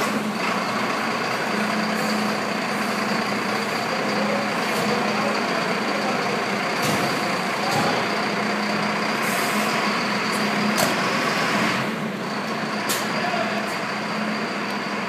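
Diesel engine of a Mercedes-Benz Econic aerial ladder fire truck running as the truck moves off, with several short air-brake hisses. A steady high tone runs over it most of the time.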